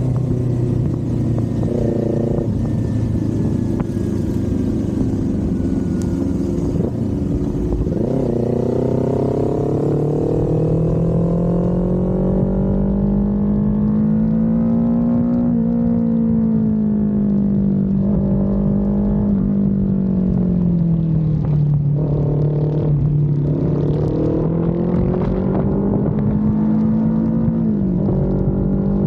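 Kawasaki Z400 parallel-twin engine and exhaust heard from the saddle while riding. The engine note holds steady, climbs about a third of the way in, eases off and dips near the two-thirds mark, then climbs again, following the throttle and gears.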